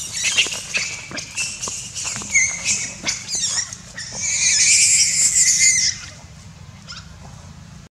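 Macaques screaming and squealing in a scuffle: short high-pitched cries that glide up and down, then one loud continuous scream from about four seconds in that breaks off suddenly near six seconds.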